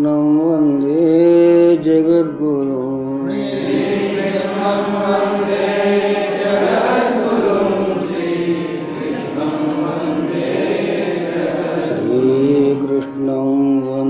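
Hindu devotional mantra chanting by voices over a steady low drone, with a fuller, denser passage through the middle.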